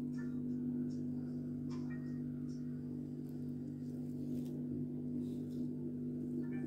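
A steady low hum made of several held tones, unchanging throughout, with a few faint clicks, one about two seconds in.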